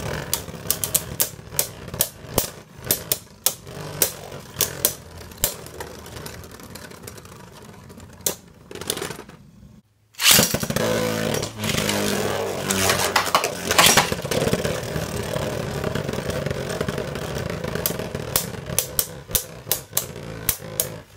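Two Beyblade Burst tops, Z Achilles and Archer Hercules, spinning on a plastic stadium floor with a steady whir, their layers striking each other in repeated sharp clicks. About halfway through the sound cuts out briefly, then a new launch sets the tops whirring loudly and they clash again, with the clicks coming fast near the end.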